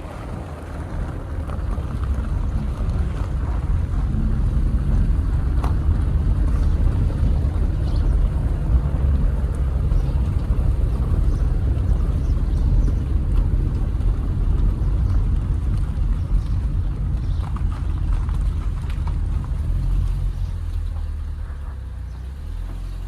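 Wind buffeting the microphone: a heavy, uneven low rumble that grows stronger over the first few seconds and eases near the end.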